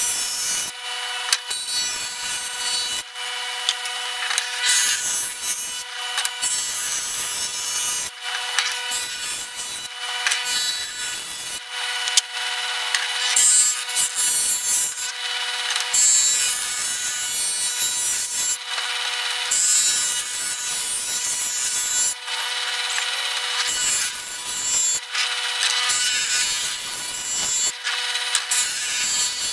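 Wood jointer running with a steady whine while a board is pushed over its cutterhead, giving repeated rasping cutting passes of a second or two each with brief gaps between.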